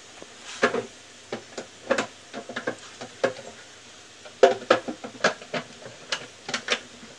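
Irregular plastic clicks and knocks of a countertop blender's jar and lid being handled and fitted onto the base, the motor not yet running.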